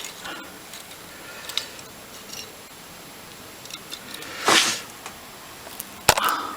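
Small metal clicks and knocks from hand tools and parts of a seized motorcycle carburettor being worked apart on the bench, with a brief scrape about four and a half seconds in and a sharp metallic click near the end.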